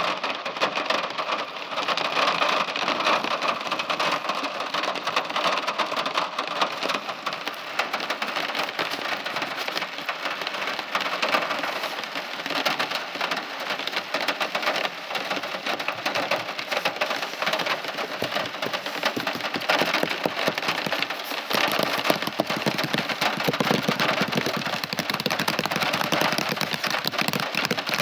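Steady, heavy rain falling, a dense even patter of drops. About three-quarters of the way through, the sound grows fuller and deeper.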